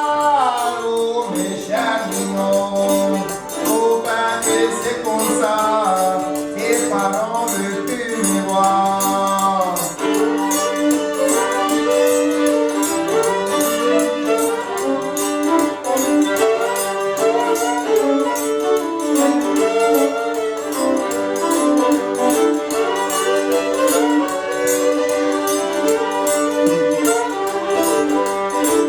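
A Cajun string band playing: a voice sings over the instruments for about the first ten seconds, then the instruments carry on without singing.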